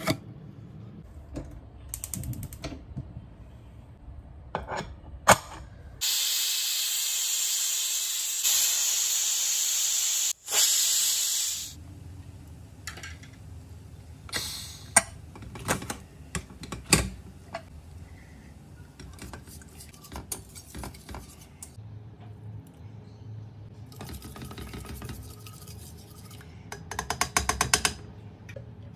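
Prestige pressure cooker whistling: a loud, steady jet of steam hissing for about five seconds, broken briefly near its end. Around it come metal clicks and clanks of lid and utensils, and near the end a quick run of ladle taps in the pot as the cooked dal is stirred.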